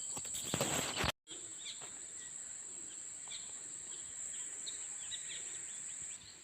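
Steady high-pitched drone of insects in a farm field, with faint bird chirps. A short rustling burst comes just under a second in, cut off by a brief dropout.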